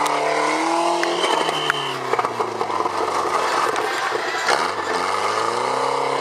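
Banger racing car engine revving up and down twice, with knocks and metal scraping in between.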